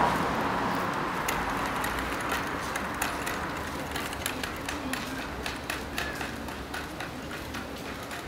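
Footsteps of hard shoes on cobblestones: irregular sharp taps a few times a second, over a low crowd murmur. A rushing noise at the start fades away within the first second or two.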